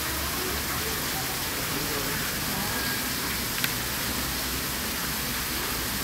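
Steady rushing hiss of outdoor background noise, with a single sharp click about three and a half seconds in.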